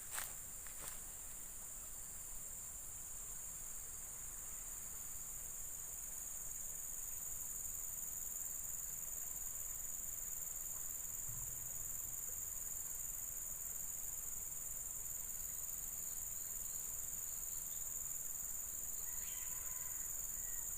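Steady, high-pitched insect chorus, with a few faint short calls near the end.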